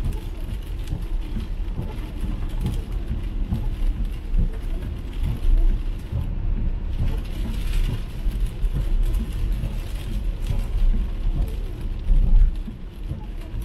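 Cabin sound of an MG ZS EV electric car driving on a rain-soaked road: a steady low rumble of tyres on wet tarmac with rain pattering on the car, and no engine note. A brief swell of hiss comes about halfway through.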